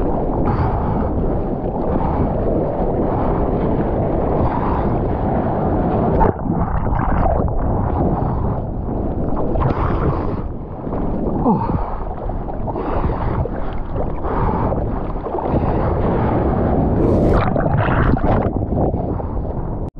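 Sea water rushing and splashing around a surfer's GoPro, with wind buffeting the microphone, in irregular surges.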